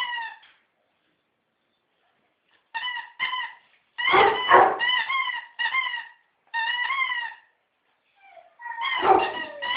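A dog's squeaky toy squeaking in a run of short squeals. Louder dog barks come in about four seconds in and again near the end, during a tug-of-war over the toy.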